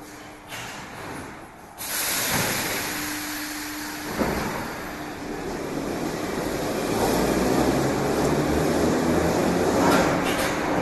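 Moscow metro 81-765 "Moskva" train heard from inside the car. A sudden hiss starts about two seconds in and a clunk comes about four seconds in, after which the train's running noise grows louder and holds steady.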